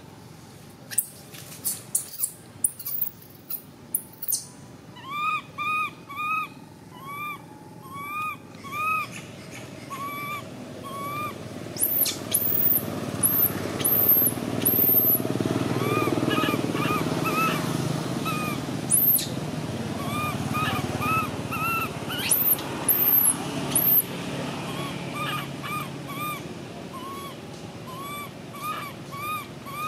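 Baby long-tailed macaque screaming in runs of short, arched cries, about two a second, with a few shriller squeals in between.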